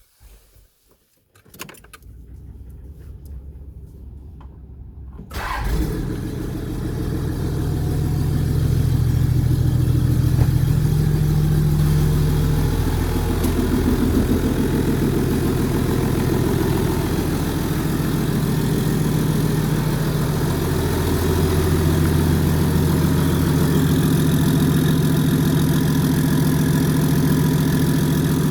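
Toyota Land Cruiser HDJ80's turbo-diesel straight-six, muffler deleted, starting up. A few clicks and a low hum come first, then the engine catches suddenly about five seconds in and settles into a steady, loud idle.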